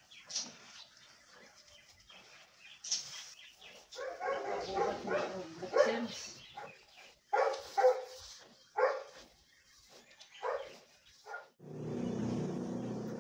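A dog barking several times in a ragged string of short barks. Near the end a steady low drone starts.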